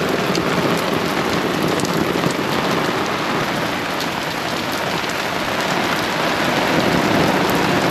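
Heavy pouring rain falling steadily, an even hiss with scattered drop ticks.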